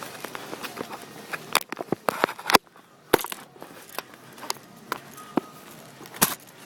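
A run of irregular sharp clicks and snaps, with the loudest about two and a half seconds in and another near the end.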